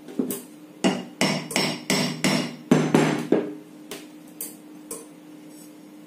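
Club hammer striking the end of a ceiling fan motor's metal shaft in quick repeated blows, each with a short metallic ring, tapping the rotor and stator assembly loose from the housing so the bearings can be changed. About nine hard blows come first, then three lighter knocks.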